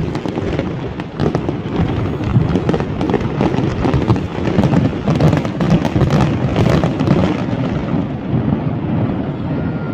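Large fireworks display: a dense, continuous barrage of bangs and crackling shell bursts, easing off slightly near the end.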